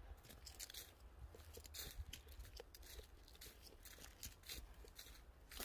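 Faint, irregular crunching of footsteps on dry leaf litter.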